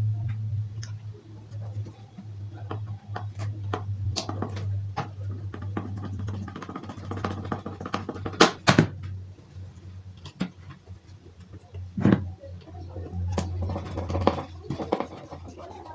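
Loudspeaker driver being fitted by hand into a speaker box and screwed in: scattered clicks, knocks and scrapes, with louder knocks about eight and a half and twelve seconds in, over a steady low hum.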